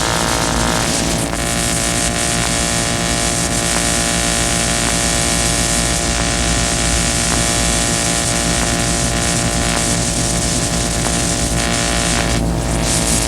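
Noise music: a loud, dense wall of hiss over layered steady droning hums, with the texture shifting slightly about a second in and again near the end.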